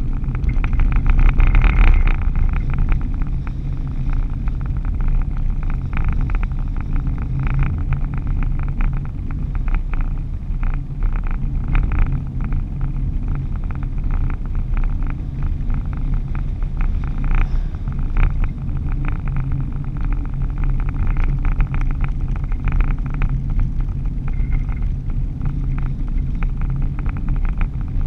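A car's engine and tyre noise at steady highway speed, heard from inside the cab, with a fast fine rattle over the low rumble.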